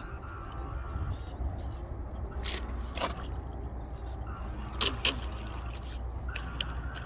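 Small motor of a homemade RC boat whining faintly in short spurts, its propeller churning shallow, muddy water, over a steady low rumble. A few sharp clicks come about three and five seconds in.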